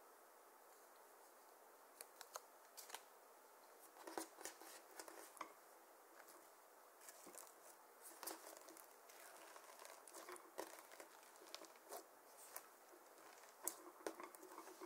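Clear slime loaded with blue eyeshadow powder, glitter and sequins being pressed and folded by hand, giving quiet irregular clicks and crackles that start about two seconds in.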